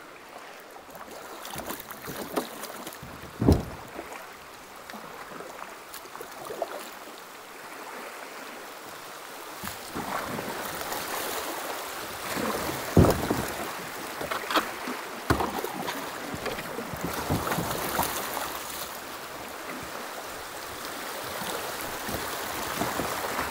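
Shallow river rapids rushing and splashing around a small kayak, louder from about ten seconds in, with a few sharp knocks, the loudest about three and a half and thirteen seconds in.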